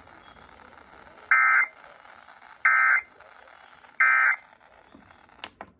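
Emergency Alert System end-of-message data bursts: three short bursts of two-tone digital data, each about a third of a second long and about 1.3 s apart, over faint receiver hiss. They signal the end of the alert, here the close of the required monthly test. Two brief clicks follow near the end.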